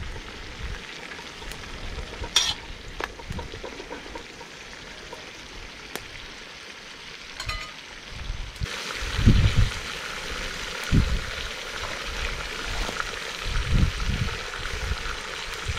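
Pieces of young goat meat frying in oil in a metal cauldron over a wood fire: a gentle, steady sizzle with a few ladle clicks early on, growing louder about halfway through. The sizzle is weak because the fire under the pot is still small. A few low thumps come in the second half.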